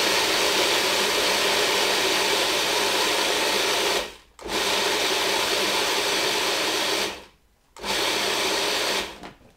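Food processor motor running, chopping rolled oats, walnuts and shredded coconut into small pieces. It runs in three bursts, stopping briefly about four seconds in and again about seven seconds in, each run shorter than the last.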